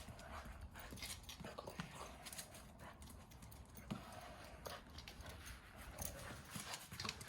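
Faint, irregular clicks and snaps of a Cavalier King Charles spaniel's jaws as it bites at soap bubbles.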